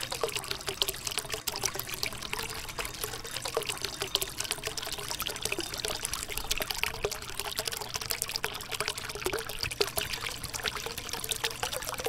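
Water trickling and splashing from the spouts of a multi-level cement tabletop fountain into its pools, a steady patter of small splashes, with a faint low hum underneath.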